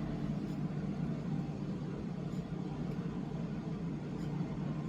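Steady low background hum with a few faint ticks, no speech.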